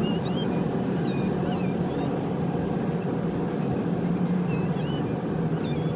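Steady road noise and engine hum of a car driving, with scattered short high chirps sweeping in pitch over it.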